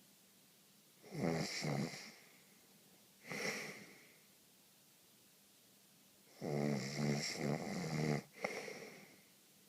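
A person snoring in irregular bouts: a short double snore about a second in, a breathier one at about three and a half seconds, then a long snore from about six and a half seconds followed by a shorter one, with quiet breathing gaps between.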